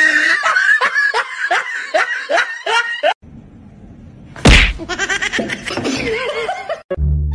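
Quick, repeated laughter-like calls, then after a cut one sharp smack about four and a half seconds in, followed by more laughter.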